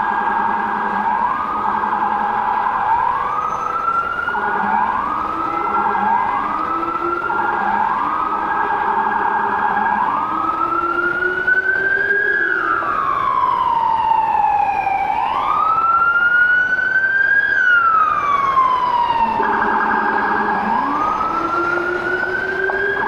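Emergency vehicle siren in city street traffic: first a run of short rising sweeps about one a second, then a slow wail that rises and falls twice, with a brief steady tone before it starts rising again.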